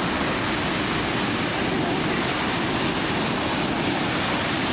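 Victoria Falls, the Zambezi pouring over the cliff into its gorge: a continuous, even rush of falling water.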